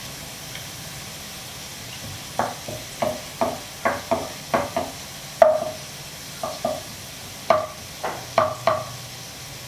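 Sliced shallots frying in oil in a wok, a steady sizzle, as they turn golden. From a couple of seconds in, a wooden spatula stirs them, knocking against the pan about a dozen times in quick strokes.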